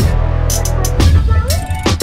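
Electronic outro music with a heavy bass line and sharp drum hits, and a short rising synth glide about three quarters of the way through.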